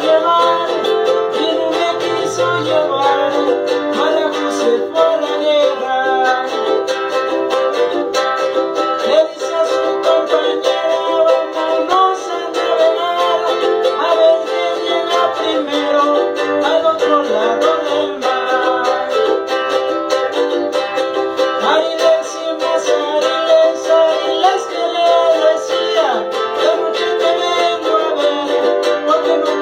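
A handmade jarana segunda, the small strummed guitar of son jarocho, being played: strummed chords in a steady, continuous rhythm.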